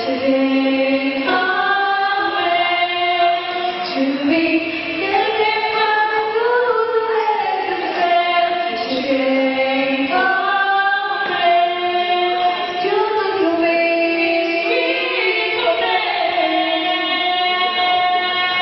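Three female voices singing together in harmony into handheld microphones, several sustained notes moving at once.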